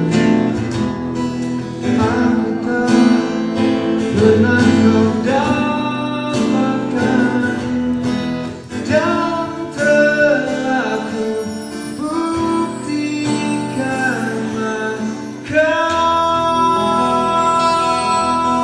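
Live acoustic guitar strummed in an even rhythm with a man singing over it. About three-quarters through, a sustained chord of long held notes joins in and continues under the guitar.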